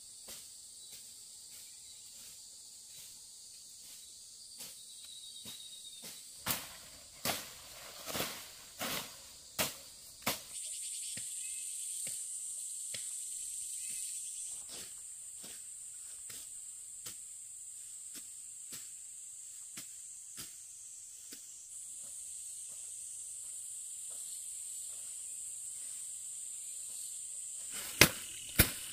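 Insects chirring in a steady high-pitched drone that grows louder about ten seconds in. Scattered sharp clicks and knocks cut through it, with a cluster of louder knocks between about six and ten seconds in.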